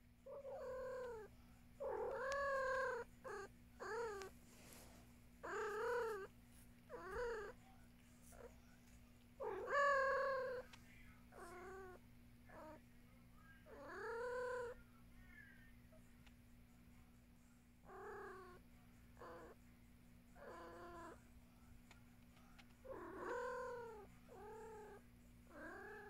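Domestic cats meowing back and forth: a long run of short meows, each rising then falling in pitch, with brief pauses between.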